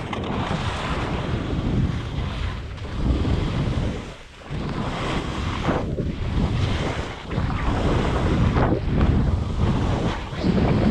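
Wind rushing over a skier's body-worn camera microphone during a downhill run, mixed with the skis' noise on wind-crusted snow. The noise rises and falls with the turns and drops briefly about four seconds in.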